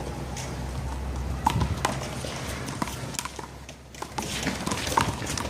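One-wall handball rally: a small rubber handball smacking off hands, the wall and the pavement in a run of sharp, irregular slaps.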